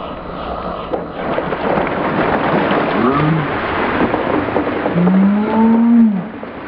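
Ice water pouring out of plastic buckets over two people and splashing down around them, played back slowed down as a dense, steady rush. Deep, drawn-out yells from the soaked people come about three seconds in and again, longer and louder, near the end.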